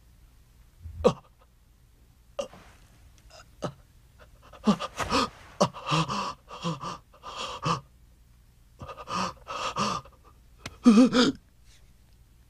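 A man's voice gasping and grunting with strain in short bursts, in several quick runs, the loudest near the end.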